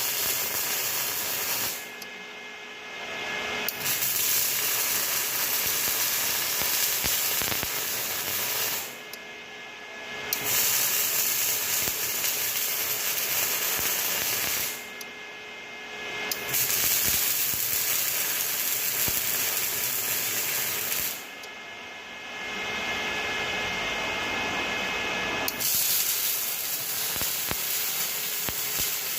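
Electric arc welding: a steady hiss in five runs of several seconds each, stopping four times for short pauses between beads.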